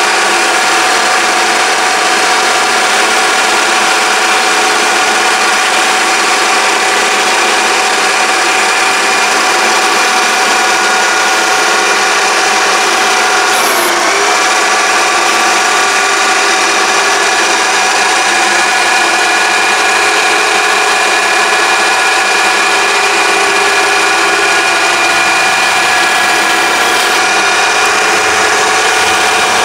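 Mini metal lathe running steadily, its motor giving a constant whine with several steady tones. The pitch dips briefly about halfway through.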